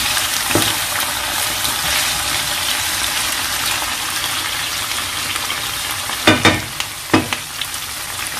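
Sliced vegetables with thyme and bay leaves sizzling steadily in plenty of hot oil in a pan as they are stirred. A few sharper knocks of the spoon against the pan come about half a second in and around six and seven seconds.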